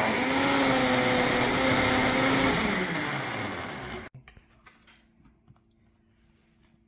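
Nutri Ninja personal blender motor running at speed, pureeing onion, pepper and seasoning in a smoothie cup. Its pitch sags about three seconds in and it cuts off abruptly about four seconds in, followed by a few faint clicks of the cup being handled.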